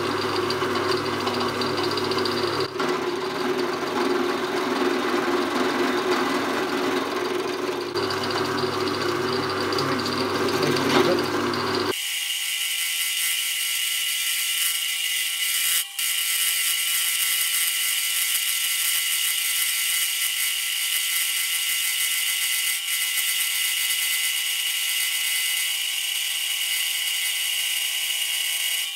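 Pillar drill running with a milling cutter cutting metal as the table is swung slowly round, a steady mechanical drone with a faint squeal. About twelve seconds in it abruptly becomes a thin, high whine and hiss: the same cutting played back at 8x speed.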